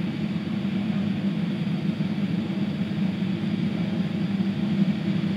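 Steady low rumble of a distant Airbus airliner's jet engines, heard through terminal window glass.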